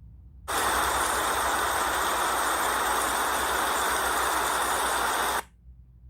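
Steady rain-like hiss that cuts in abruptly about half a second in, holds level for about five seconds, then cuts off just as suddenly.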